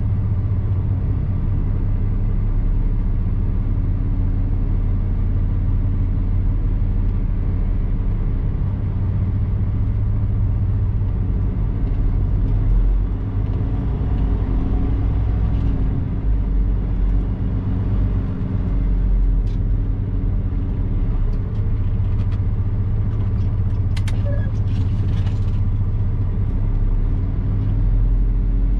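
Semi-truck's diesel engine running steadily at low speed, heard from inside the cab as a low drone. A few light clicks come about two-thirds of the way through.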